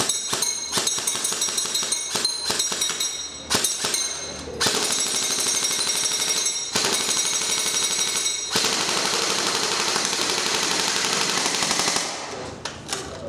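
JG M16A4 UFC airsoft electric gun (AEG, Type 2 gearbox) firing on an 11.1 V LiPo battery: a run of short bursts and single shots, then long strings of rapid full-auto fire with brief breaks, stopping about twelve seconds in.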